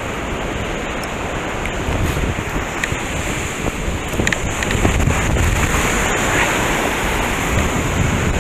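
Wind buffeting the microphone over the steady wash of surf breaking on the beach, with a few faint clicks.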